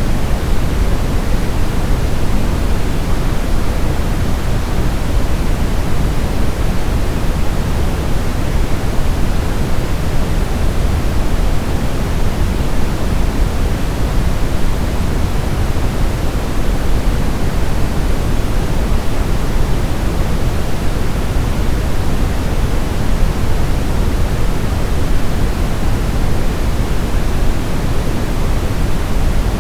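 Steady, unchanging synthetic noise, heavier in the low end than the highs, like pink noise: a continuous noise track for sleep.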